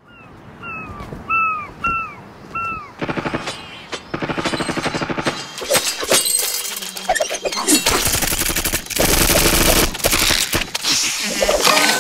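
Cartoon soundtrack effects: five short, falling bird-like chirps, then from about three seconds in a fast rattling run followed by busy, noisy action effects.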